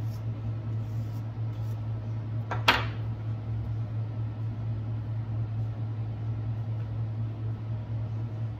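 A steady low hum, with faint strokes of a hairbrush through synthetic wig hair in the first second or so. About two and a half seconds in comes one sharp knock as the brush is set down.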